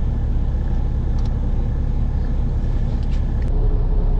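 Semi-truck's diesel engine idling, a steady low drone heard from inside the cab, with a few light clicks over it.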